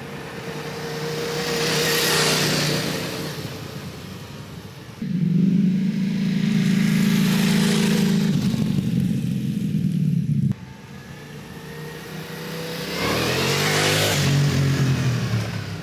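Ducati Multistrada V4S's V4 engine through its exhaust, heard across cut-together riding clips. First comes a pass-by that swells and fades. About five seconds in, a sudden, louder steady engine note holds for about five seconds and cuts off. Then a second pass-by comes, its pitch falling as the bike goes by.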